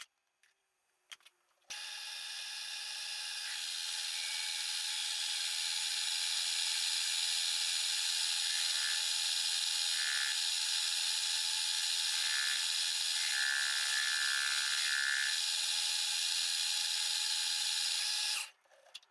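Soviet-made metal lathe turning down the outside diameter of a steel part: a steady cutting noise with thin whining tones. It starts after a brief silence about two seconds in and cuts off suddenly near the end.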